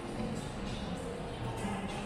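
Background music playing through a shopping mall's sound system, with a murmur of voices in a large hall.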